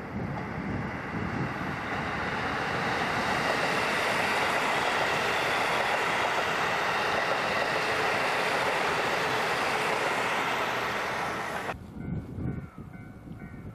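Diesel express train passing close by: a steady rush of engine and wheel noise that builds over the first few seconds, holds, then cuts off abruptly near the end.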